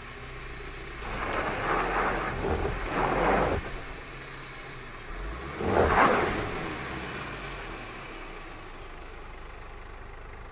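Mercedes-Benz Sprinter van's engine running under load as the van is winched out of the ditch, with two louder rushing surges about a second and about five and a half seconds in, the second the loudest.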